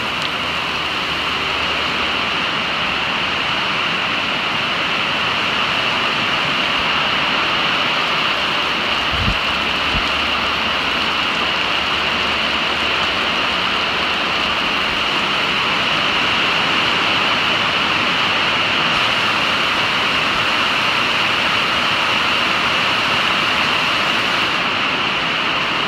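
Heavy rain falling on a metal roof, heard from inside the building as a loud, steady noise.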